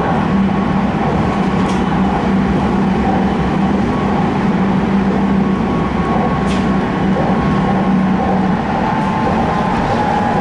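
Diesel railcar running at speed, heard from inside at the front: a steady engine hum over the rumble of wheels on rail. The low engine note drops away about eight and a half seconds in while the running noise carries on.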